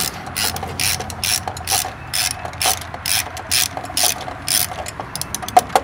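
Socket ratchet clicking in quick, even back-strokes, about two to three a second, as a bolt on the top engine mount is spun out.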